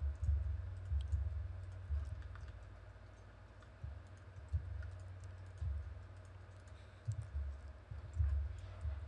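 Computer keyboard keystrokes and mouse clicks, each heard as a short dull thump with a faint click, coming at irregular intervals about once a second.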